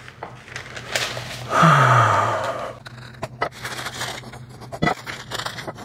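Parchment paper crinkling and rustling with scattered light taps as raw ground-beef patties are pressed flat on a wooden cutting board. About a second and a half in there is a breathy sigh that falls in pitch, the loudest sound.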